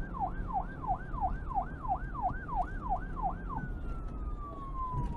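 Emergency vehicle siren in a fast yelp, its pitch sweeping up and down about two and a half times a second over a low rumble. About three and a half seconds in it changes to one long, slowly falling tone.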